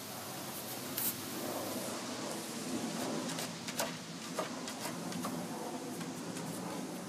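Insect buzzing, steady, with a few sharp clicks.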